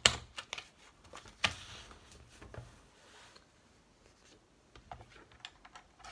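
Sheet of paper being handled and slid into place on a plastic paper trimmer board: a sharp click at the start and another about a second and a half in, then faint rustling and light ticks.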